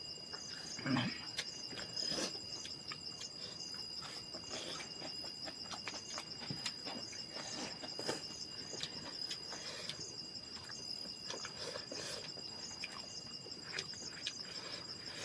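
Insects, crickets or the like, chirring steadily in one continuous high tone, with a faint pulsing trill above it. Scattered short rustles and small knocks come and go.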